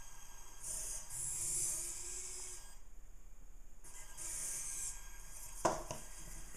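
I-SOBOT toy humanoid robot's servo motors whirring in bursts as it moves its arms and body, pausing briefly in the middle. A single sharp knock near the end as it crouches down toward the table.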